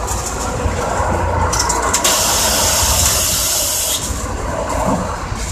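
Compressed air hissing out of a stationary Moha 50 tram's pneumatic system: a loud hiss that starts sharply about two seconds in and stops about two seconds later, over the tram's steady low hum.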